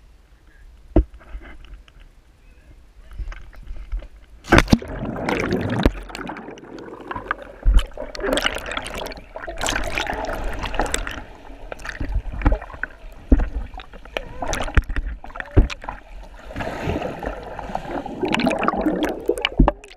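Swimming-pool water splashing and gurgling around an action camera on a pole as it goes into the water about four and a half seconds in and is moved about at and below the surface. Sharp knocks come now and then from the pole and camera housing being handled.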